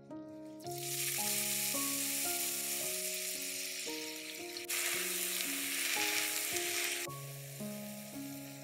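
Grated raw potato sizzling loudly in hot oil in a frying pan, starting about a second in, with abrupt jumps in the sizzle at editing cuts. Near the end it settles to a quieter frying hiss as beaten egg is poured in. Soft background music plays underneath.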